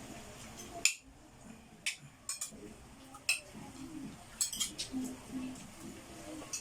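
Spoons and forks clinking against plates and bowls during a meal: several sharp clinks at irregular intervals, about a second apart, with faint voices underneath.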